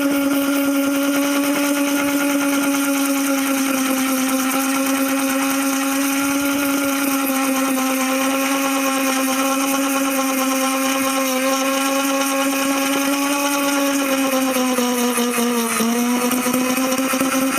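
Dremel rotary tool running steadily while sanding a dried sheep pelt. Its pitch sags briefly near the end as the tool bogs under pressure against the hide, then recovers.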